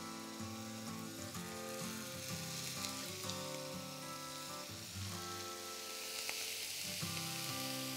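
Minced beef burger patties sizzling in olive oil in a hot frying pan; the sizzle grows louder about five seconds in. Background music plays underneath.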